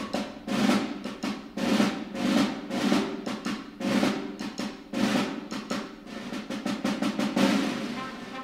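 Snare drums playing a rhythmic percussion passage, with accented strokes about once a second and a fast run of rolled strokes near the end.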